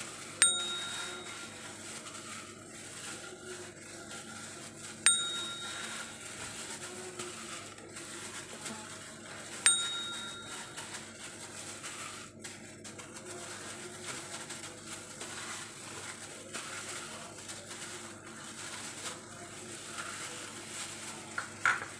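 Three short, bright ringing dings about four and a half seconds apart, each fading within a second. Between them are faint handling sounds as salt and pepper are rubbed by hand onto whole raw fish.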